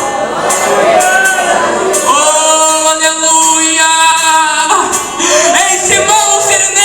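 Music with a singing voice. Near the middle the voice holds one long note for about two and a half seconds.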